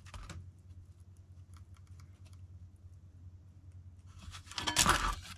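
Hands working a self-adhesive vinyl sticker onto a plastic motorcycle windshield: faint ticks and rustles, then a louder papery tearing rustle about four and a half seconds in, over a low steady hum.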